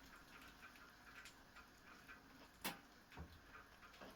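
Near silence: room tone with a few faint clicks, the sharpest about two and a half seconds in, followed by a soft knock.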